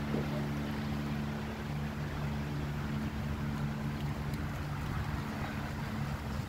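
Steady low engine hum at an even pitch, over a noisy background.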